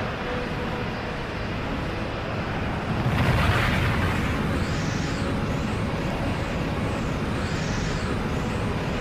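Anime energy-aura power-up sound effect: a steady rushing roar that swells about three seconds in. Whistling tones sweep up and down together twice, in the middle and near the end.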